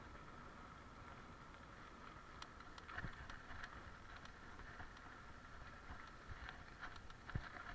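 Mountain bike rolling along with a steady hiss, then from about three seconds in a scatter of clicks and knocks as it rides over a bumpy grassy dirt path, the bike rattling over the rough ground.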